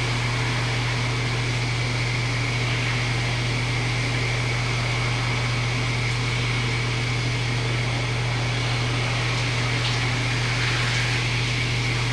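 Shower running: a steady hiss of water spray over a constant low hum.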